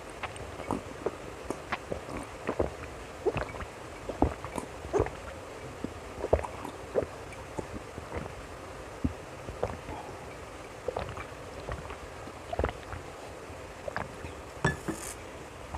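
Close-up eating sounds: irregular wet smacks and clicks of chewing, a few a second, over a steady background hiss.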